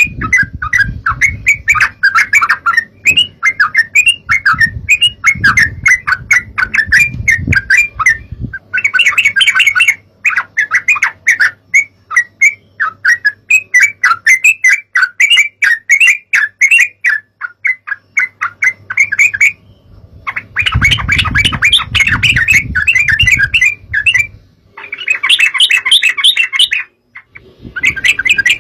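Yellow-vented bulbuls (trucukan) chattering: long bouts of rapid, bubbly notes with short breaks, about eight seconds in, around twenty seconds, and twice near the end. A low rumble sits under the calls for the first eight seconds and again around twenty-one seconds.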